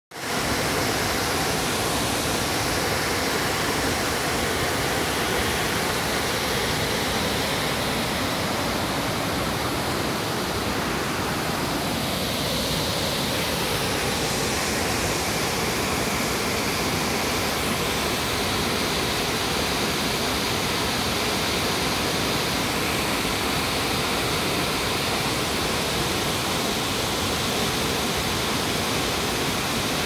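Large tiered waterfall in heavy flow, white water pouring over rock ledges: a steady, even rush of falling water.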